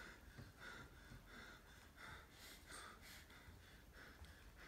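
Faint heavy panting, about three breaths every two seconds, as from someone out of breath after running.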